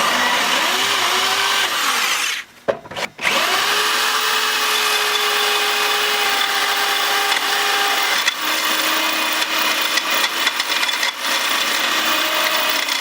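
Ryobi drill boring into a broken steel frame-rail bolt, its motor whine mixed with the grinding of the bit chopping metal fragments. It stops about two seconds in, blips briefly, then starts again and runs steadily, its pitch dropping a little later on.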